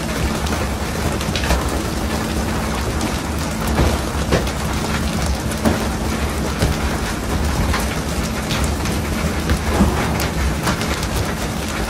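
Dense rain-like hiss of water spray falling on the sea beside a pole-and-line tuna boat, over the steady low hum of the boat's engine, with scattered knocks and slaps as skipjack tuna are swung aboard onto the deck.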